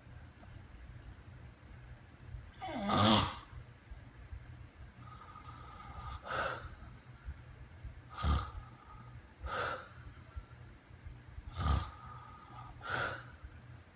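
Snoring: six rough, noisy breaths at uneven intervals, the first about three seconds in the loudest. A thin, steady whistling tone runs between several of the breaths.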